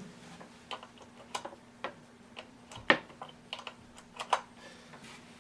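Scattered light clicks and knocks of things being handled, the loudest about three seconds in, over a faint steady hum.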